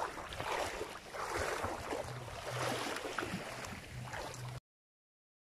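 Small waves lapping at the edge of a sandbar, with wind on the microphone and a faint low hum that comes and goes; the sound cuts off suddenly near the end.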